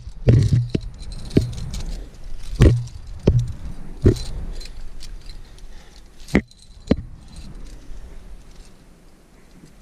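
Climbing hardware on a harness, carabiners and cams, jangling and clinking as the climber shuffles along a granite crack, with scuffs against the rock. Sharp clinks come every half second to a second or so for about seven seconds, then it goes quieter.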